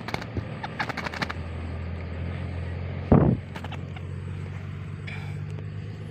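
An engine idling steadily, with a run of sharp clicks in the first second or so and one short, loud low sound about three seconds in.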